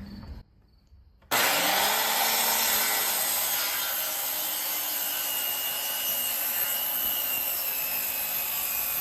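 Handheld circular saw starting up about a second in and cutting through a 2x8 board, with a steady whining buzz as the blade runs through the wood.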